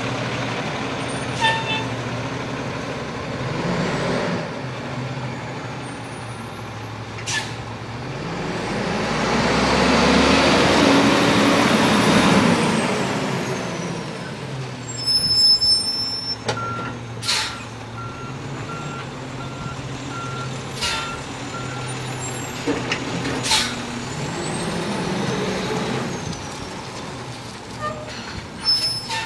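Garbage truck's diesel engine running, revving up to a loud swell about eight seconds in and easing back down. Sharp air-brake hisses come several times, and a row of steady beeps sounds in the second half.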